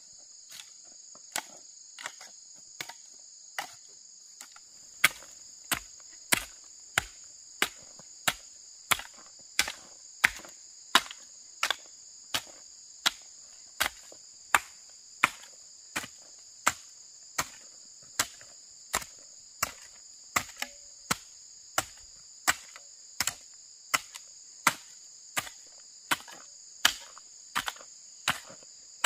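A hand tool striking over and over, steady sharp blows about three every two seconds, fainter at first and louder from about five seconds in. A constant high-pitched insect chorus, like crickets, runs underneath.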